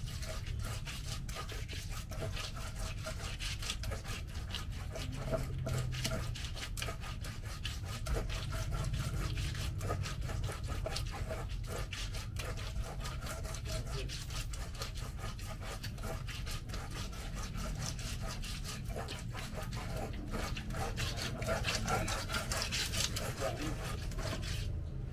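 Pestle grinding and rubbing a thick, gritty rujak cingur sauce in a large stone mortar (cobek): continuous scraping strokes of the pestle against the stone through the paste, over a steady low hum.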